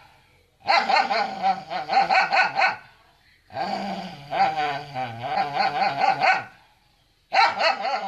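A dog yowls and barks in three long, wavering bouts of rapid calls with short pauses between them. It is complaining at food being held back from it.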